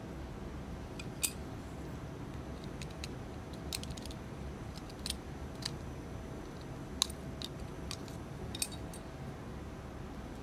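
Scattered small clicks and taps of a die-cast Hot Wheels Custom Mustang's metal base and plastic interior being handled and pried apart with a small tool, the sharpest about a second in and about seven seconds in, over a steady low hum.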